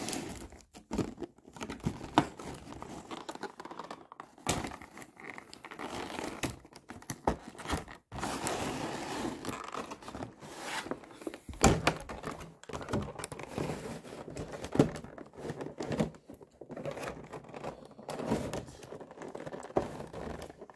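Figure packaging being handled and opened: clear plastic crinkling and rustling, broken by irregular sharp knocks and thunks of the cardboard box and plastic blister tray.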